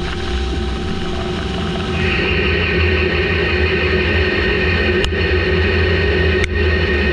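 CNC lathe turning a Haynes 188 superalloy bar with a carbide insert under flood coolant: steady cutting and spindle noise with coolant spray. About two seconds in, a thin steady high squeal joins, which is usual when roughing a tough superalloy like Haynes 188, and a few sharp ticks come near the end.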